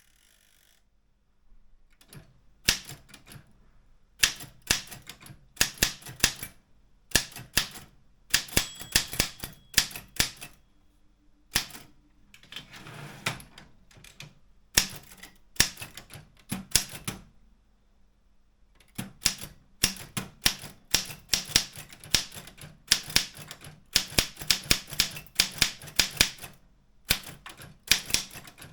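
Optima M14 typewriter being typed on: runs of quick sharp keystroke clicks in bursts, with short pauses between words, starting about two seconds in.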